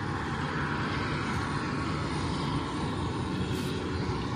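Steady aircraft engine noise, an even rushing with a faint low hum and no change in level.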